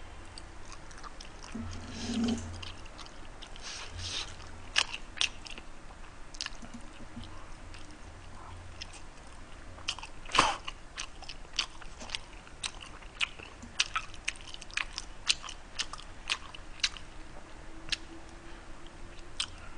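Close-miked chewing of spicy pork trotters: wet mouth clicks and smacks scattered throughout, the loudest about ten seconds in.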